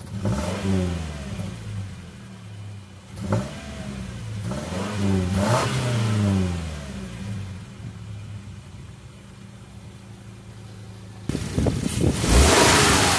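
2015 Subaru Forester's 2.5-litre boxer four-cylinder engine revved in park, heard at the tailpipe: a rev falling back at the start, a short blip about three seconds in, then a longer rev rising and falling a couple of seconds later before it settles to a steady idle. Near the end a louder rushing noise takes over.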